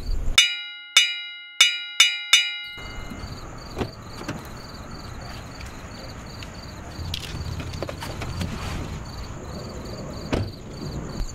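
A short music sting of five struck, ringing notes over dead silence, then night ambience of crickets chirping in a steady pulse, with a few scattered clicks and knocks around the car door.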